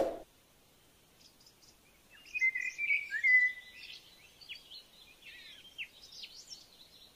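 Small birds chirping and calling: a run of short high chirps and quick falling notes for a few seconds, busiest about two to three seconds in. It opens on the fading tail of a short ringing hit.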